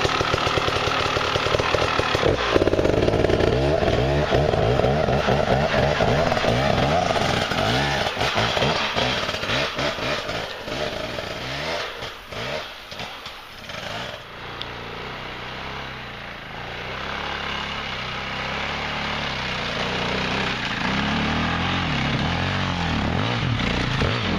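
Enduro dirt bike engines running, revving up and down through the throttle, then settling to a steadier, lower running near the end.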